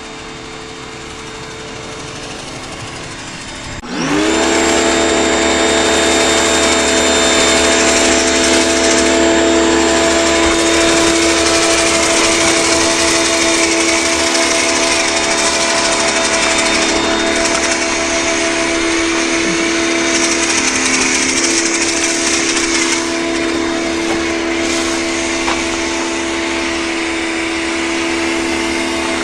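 LWQ 4200 PSI electric pressure washer's motor and pump kicking on about four seconds in with a quick rising whine, then running steadily under load with the hiss of spray from the foam cannon as the trigger is held. Before that, a fainter steady hum.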